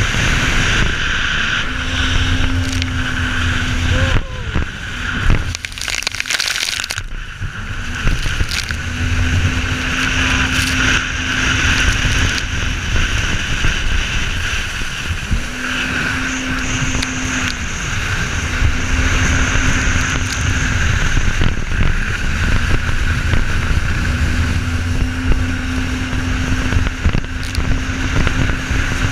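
Personal watercraft (jet ski) engine running at speed under heavy wind buffeting on the microphone, with water spray hissing against the hull. The engine tone breaks off and comes back a few times, most clearly about five to seven seconds in.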